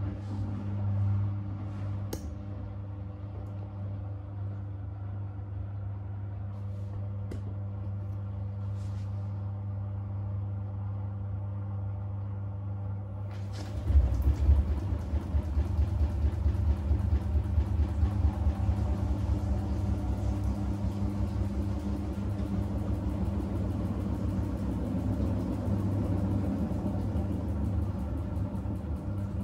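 Front-loading washing machine running with a steady motor hum. About halfway through it turns to a louder low rumble that beats rapidly, typical of the drum spinning at speed.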